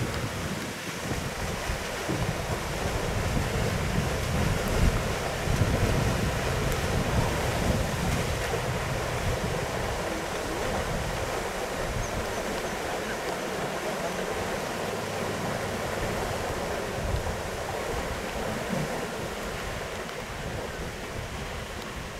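Wind buffeting the microphone in uneven gusts, heaviest in the first half, over a steady rushing noise like lapping water.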